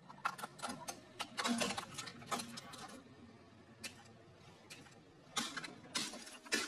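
Hard plastic shells of battery-powered computer mice cracking and snapping under a car tyre, with splintering clicks. A dense run of cracks comes in the first two seconds or so, a few lone snaps follow, and another cluster of cracks comes near the end.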